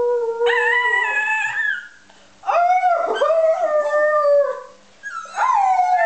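Terrier and person howling together in long, wavering notes, in three stretches broken by short pauses about two seconds and five seconds in.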